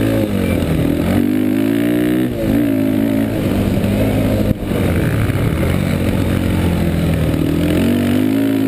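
Yamaha Warrior 350 ATV's air-cooled single-cylinder four-stroke engine running hard at racing speed, heard close up from a camera on the quad, its pitch dropping and climbing again several times with throttle and gear changes. A short sharp break in the sound comes about four and a half seconds in.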